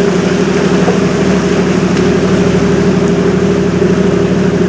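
Steady drone of a river cruise ship's engines: an even, unchanging hum with a constant hiss over it.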